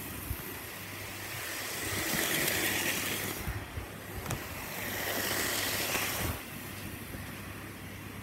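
Model train running on its track, a rushing whir that swells twice as it passes close, over a steady low hum. A few light clicks come about halfway through.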